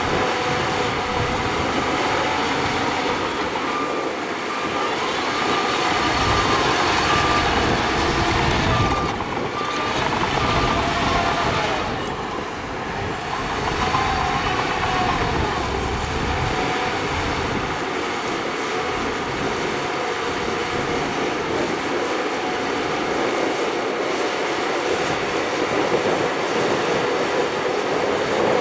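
Shantui crawler bulldozer working, its diesel engine running steadily, with high-pitched whining tones over the machinery noise. The sound eases briefly about twelve seconds in.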